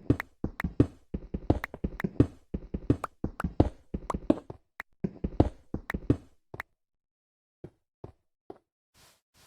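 A rapid series of sharp knocks, about three a second, that stops about six and a half seconds in, followed by three fainter, spaced knocks.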